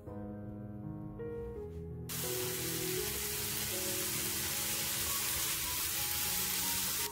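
Background music, and about two seconds in a loud, steady sizzle starts suddenly: diced Spam and onion stir-frying with gochujang in a hot pan.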